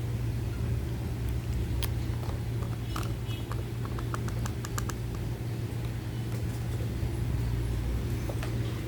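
A steady low hum with a quick run of light, evenly spaced clicks, about four a second, between three and five seconds in.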